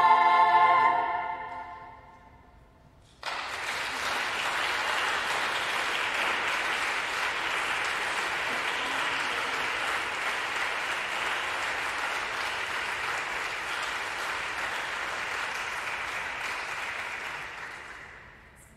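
A choir's final held chord cuts off and rings away in a reverberant hall. After a moment of quiet, an audience starts applauding about three seconds in, clapping steadily, then fades out near the end.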